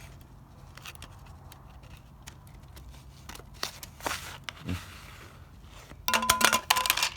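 Hand work inside a van's CD player mechanism to free two jammed discs: small clicks and brief scrapes, then about a second of loud metallic rattling and scraping near the end.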